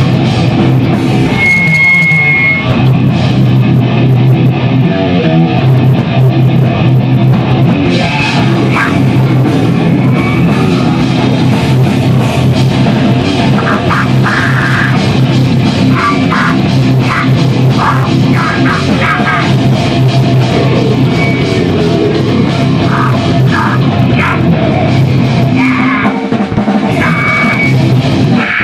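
Loud rock music with guitar and drum kit, playing steadily.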